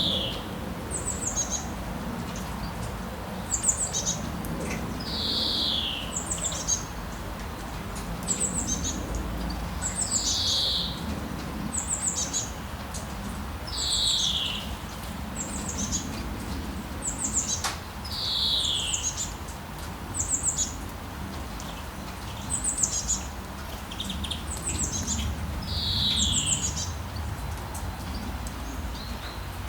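Birds calling: a clear falling whistled note repeats about every four seconds, and between them come short bursts of high, quick chirps about every second and a half.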